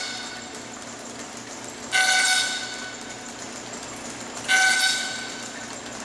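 Copying lathe's cutter head biting into a square wooden axe-handle blank: two loud bursts of a pitched cutting whine, about two and a half seconds apart, each fading over about half a second, over the steady running of the belt-driven machine.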